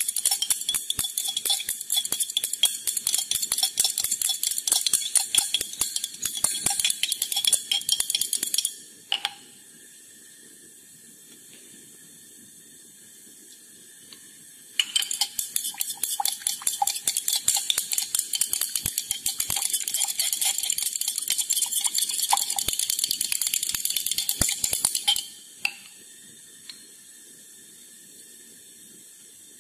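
A stirring rod clinking and scraping rapidly against a glass dish as an oil and water mixture is stirred vigorously to form the cold cream emulsion. The stirring comes in two long runs of about nine and ten seconds, with a pause of about six seconds between them.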